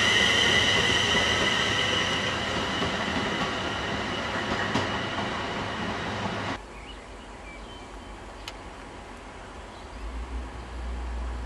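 A train running on the rails with its wheels squealing in high, steady tones that slowly fade. The sound cuts off abruptly about two thirds of the way in, leaving a quieter background, and a low rumble starts near the end.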